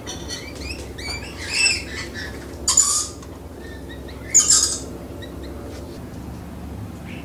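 Rainbow lorikeets calling: a few short chirps, then three harsh screeches about a second and a half apart, the second and third the loudest.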